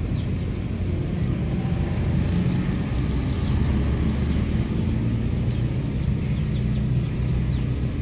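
Steady low rumble, with a few faint high chirps near the end.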